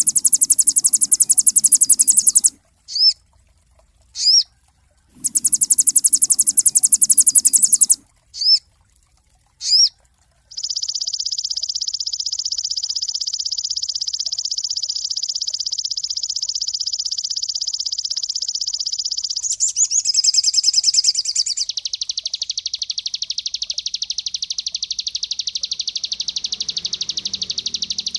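Songbird sold to bird keepers as 'sogon' singing: short high chirps between two long, very rapid buzzing trills, then from about ten seconds in one continuous rapid trill that shifts higher near twenty seconds and drops lower a second or two later.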